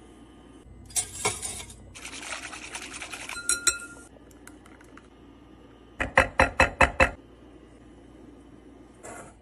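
Dry ingredients pouring with a hiss into a glass mixing bowl, with a ringing clink of metal on glass. Then a quick run of about six loud knocks of a metal wire whisk against the bowl.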